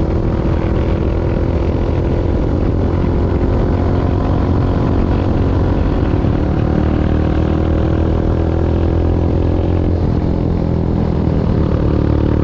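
Motorbike engine running at a steady speed while riding, a continuous drone with a strong low rumble.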